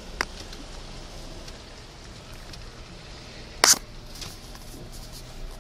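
Steady hiss of heavy rain and rushing floodwater, with a few light clicks and one sharp, loud knock about three and a half seconds in.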